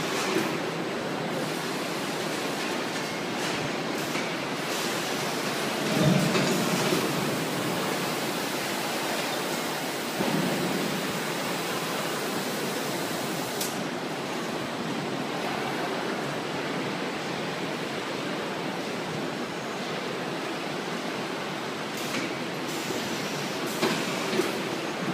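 Steady machinery noise from a low gantry palletizer stacking cartons. A few brief louder bumps stand out, the strongest about six seconds in and another about ten seconds in, with sharp clicks near the middle and near the end.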